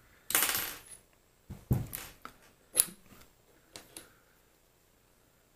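A brief scraping rub, then a handful of light clicks and knocks as small metal lathe parts are handled on the bench.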